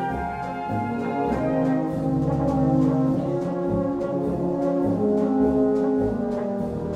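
Wind band playing a polka: brass and woodwinds hold chords over a tuba bass line, with light percussion strokes marking a steady beat.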